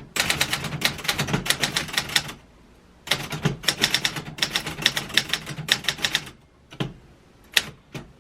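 Typewriter keys striking in quick runs of clacks, one about two seconds long and another of about three seconds, then a few single strikes near the end.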